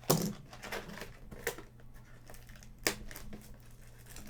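Plastic wrapping and cardboard packaging of a trading-card mega box crinkling and tearing as it is opened by hand, with three sharp crackles: one right at the start, one about a second and a half in, one near three seconds.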